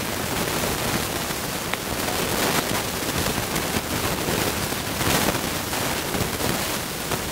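A steady, even hiss, with a few faint clicks from hands handling the toy drone's plastic propellers.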